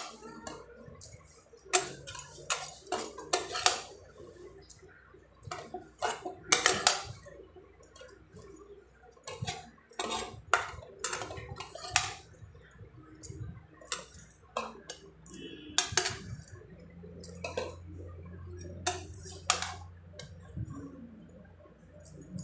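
Metal spoon scraping and clinking against the side of a metal cooking pot while stirring cooked rice together with fried vegetables, in irregular knocks and scrapes.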